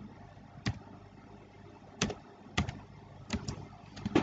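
About five scattered, separate clicks from a computer's keys or mouse, with quiet room tone between them.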